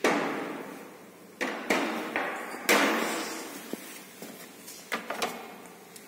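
Knocks and bangs of a refrigerator's doors and plastic compartment parts being handled. There is a bang at the start, a few smaller knocks around a second and a half to two seconds in, and another loud bang a little under three seconds in, each dying away over about a second. A few light clicks follow near the end.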